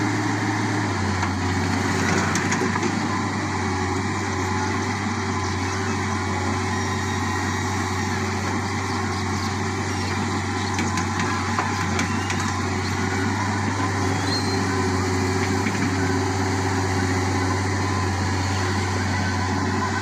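Volvo EW180 wheeled excavator's diesel engine running steadily while the machine works its boom and bucket digging. It is a constant low hum whose note thickens slightly about a second in.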